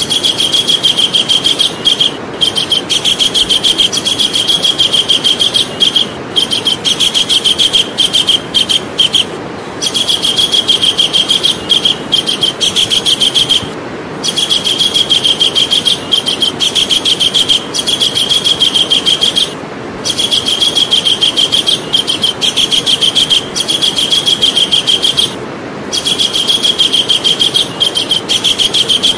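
Javan kingfisher calling: long runs of rapid, high, evenly repeated notes, broken by short pauses every few seconds, over a steady low hiss.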